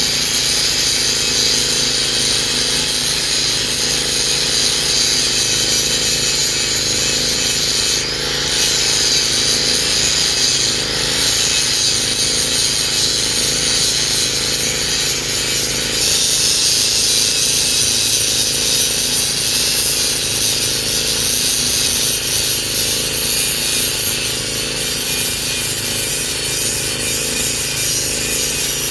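Hitachi excavator's diesel engine and hydraulics running steadily under working load while chipping oil palm trunks, with a slight change in the higher noise about eight and sixteen seconds in.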